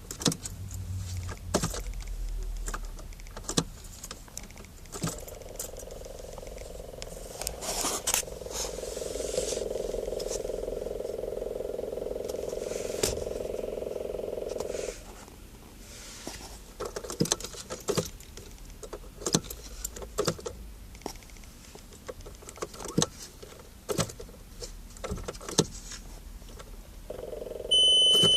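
Buzzing vibration from a car's dashboard that runs steadily for about ten seconds, cuts out, and returns near the end, with scattered clicks and rattles throughout. The owner notes that it appeared right after the gauges cut out for a moment at start-up. A short, loud, high beep sounds near the end.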